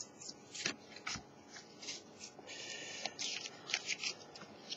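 Foil booster pack and trading cards handled by hand: scattered small crinkles and clicks, with a short rustle of the wrapper about two and a half seconds in.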